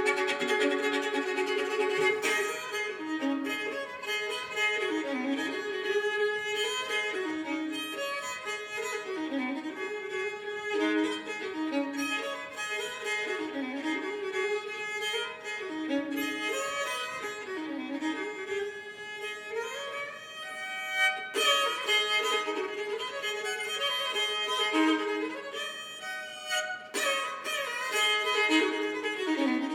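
Solo fiddle in sawmill tuning, its lower two strings raised a whole step so the open strings ring along as drones, bowing a repeated figure that dips and returns about every two seconds.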